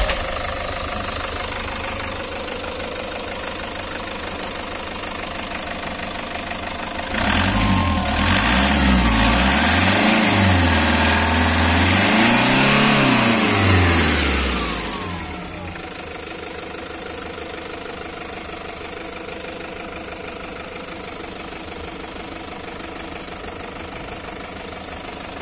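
Toyota HiAce engine idling, then revved up and let down several times for about eight seconds before settling back to a steady idle. It now starts easily and runs after its hard-starting fault was traced to corroded wires and a loose connection.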